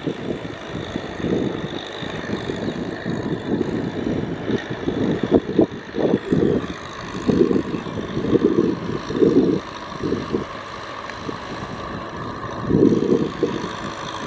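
Tractor engine running steadily under load, with irregular loud low surges every second or so.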